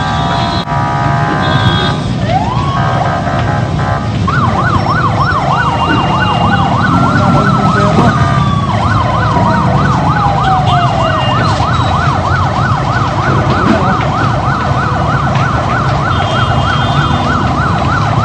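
Several emergency-vehicle sirens sounding at once. For the first four seconds there are steady stacked tones; from about four seconds in, a fast yelp rises and falls about three times a second. Slower wailing glides fall away over a low, steady rumble.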